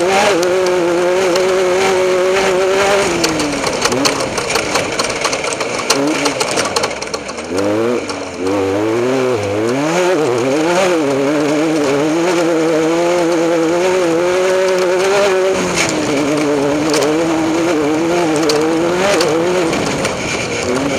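Off-road race vehicle's engine running at steady high revs. The revs fall off about three seconds in, rise and dip unevenly for several seconds from about six seconds in, hold steady again, then drop once more about sixteen seconds in. Sharp knocks and clatter are scattered throughout.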